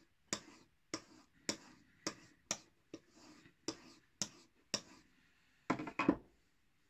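Crivit folding knife's blade stropped on a wooden-backed strop loaded with white polishing compound: about two strokes a second, each a light tick followed by a short swish. Near the end come a few heavier knocks.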